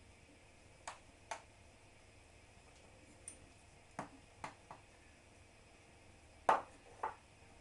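Light taps and knocks, mostly in pairs, made while grated potato is packed down into a small container.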